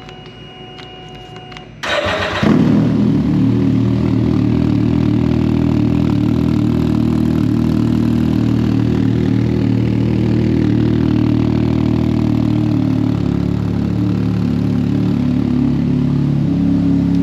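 Can-Am Ryker's Rotax 900 ACE three-cylinder engine starting: a faint steady tone for about two seconds, then the engine catches suddenly and settles into a steady idle.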